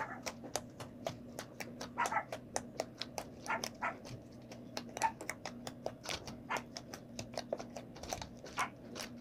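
Homemade wheat-flour slime being kneaded and squeezed by hand in a small plastic tub, giving off irregular wet clicks and pops, several a second.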